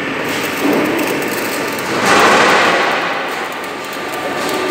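MIG welding arc crackling as a tack weld is laid on a steel H-beam joint, loudest about two seconds in.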